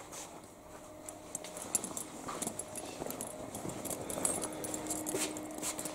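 Footsteps and light handling clicks on a tiled floor, irregular short taps throughout, over a faint steady hum.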